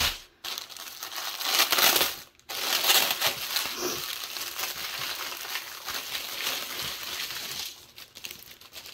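Clear plastic bag crinkling and rustling as it is opened and handled, with the small plastic packets of diamond painting drills inside shifting against each other; the crinkling dies down near the end.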